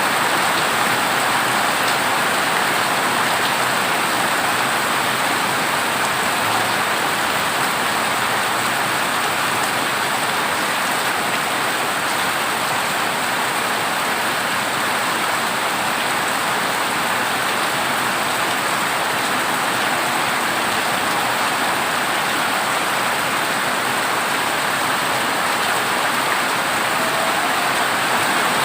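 Heavy rain falling steadily on a corrugated zinc roof, an even hiss of drumming drops with no breaks.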